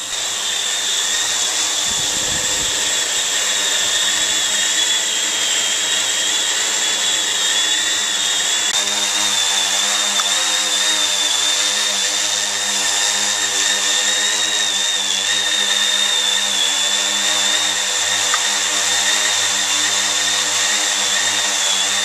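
Yuneec H920 hexacopter drone hovering and flying, its six electric motors and propellers giving a loud, steady high whine over a low buzz, the pitch wavering slightly as it holds position.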